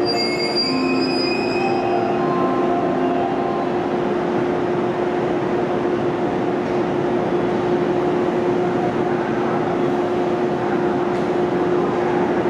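Electric train moving through the station, with short high wheel squeals in the first couple of seconds over a steady running hum.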